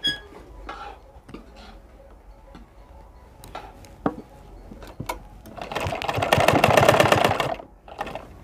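A metal ladle scrapes and taps in an iron kadhai. About halfway through, a sewing machine runs for about two seconds with a rapid even stitching rhythm, the loudest sound here.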